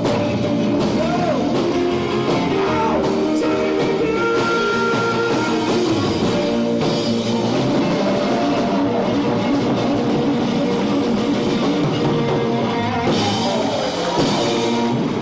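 Live rock and roll band playing loudly: a drum kit driving the beat under guitar, with some singing.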